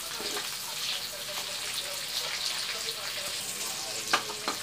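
Shrimp and garlic sizzling in hot oil in a wok while being stirred with a metal spatula, with two sharp clinks of the spatula against the wok near the end.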